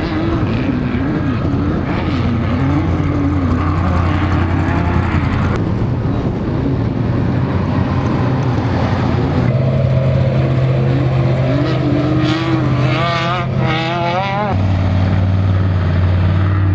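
Off-road race vehicles' engines running hard, the pitch wavering up and down quickly as the revs rise and fall. The sound changes abruptly three times.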